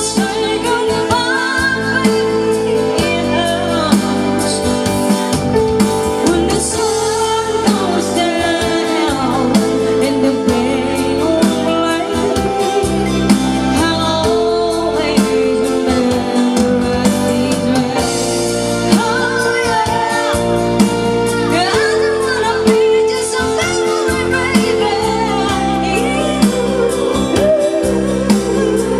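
Music with a singing voice and instruments over a steady beat, played loud through a PA sound system of amplifiers and a mixer.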